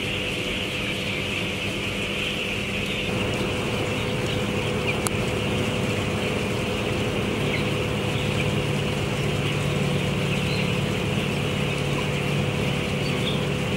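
Steady machinery hum of a broiler house's ventilation fans, mixed with the constant massed calls of a large flock of broiler chickens.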